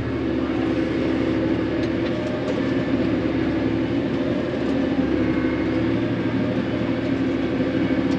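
Tractor engine running steadily under load, a constant hum.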